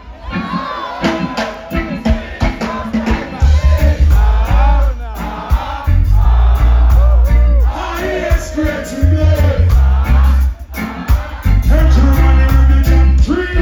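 Live reggae band playing a song, with a deep bass line and singing over it.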